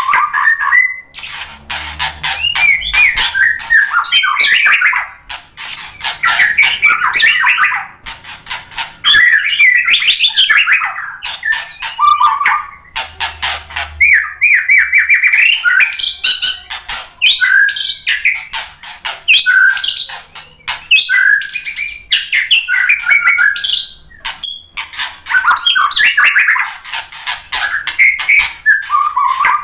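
White-rumped shama (murai batu) singing loudly and without let-up: long runs of rapid, varied whistled and chattering phrases laced with sharp clicks, broken by a few brief pauses.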